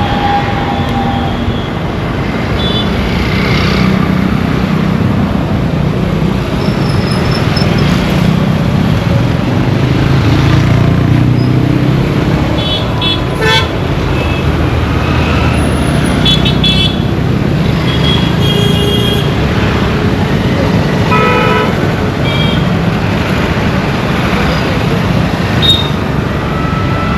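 Steady, heavy road-traffic rumble with car and vehicle horns tooting briefly several times through it.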